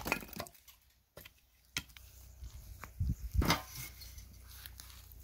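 Dry wood being chopped and handled: the tail of a hatchet blow on a wooden chopping stump at the very start, then a few sharp wooden knocks, and a cluster of duller knocks with crackling around three seconds in as sticks, pine cones and dry pine needles are set around a metal tin.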